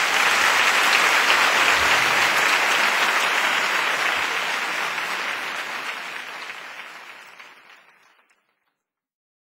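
Crowd applauding, a dense steady clapping that fades out gradually over about eight seconds into silence.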